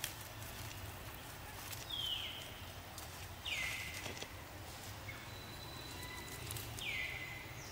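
An animal gives a high call three times, each sliding down in pitch and then levelling off briefly, over light scattered ticks and rustles.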